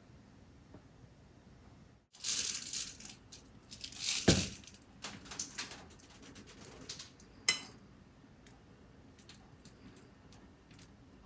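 Sugar sprinkles rattling in a small plastic shaker bottle as they are shaken out over an iced bread, starting about two seconds in with uneven rattles and clicks. A single louder knock comes about four seconds in and a bright clink about seven and a half seconds in.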